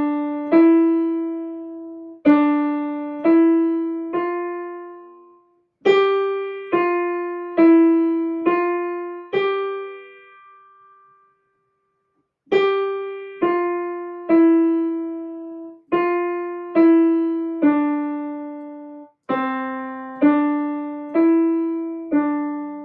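Piano played with the right hand alone: a simple beginner's melody of single notes, struck one at a time in a slow, even rhythm, stepping up and down around middle C, in short phrases with a pause of about two seconds midway.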